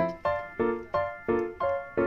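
Background music: a keyboard playing repeated chords, each struck and fading, about three a second.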